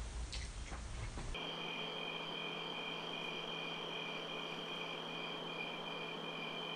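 Crickets chirping, a steady high trill with a regular pulse, cutting in suddenly about a second and a half in after a faint hiss of room noise.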